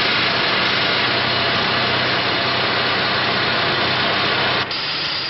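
Loud, steady industrial machine noise: a dense hiss with a low hum beneath. It cuts abruptly near the end to a slightly quieter machine sound.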